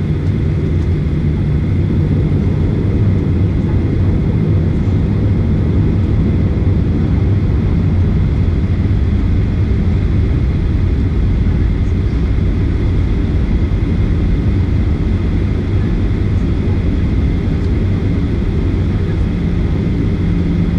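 Jet airliner taxiing, heard from inside the cabin: a steady low rumble of the engines and the airframe rolling along the taxiway, with a faint steady whine above it.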